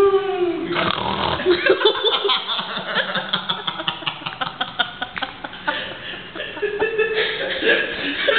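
Stifled laughter and snickering, in short bursts.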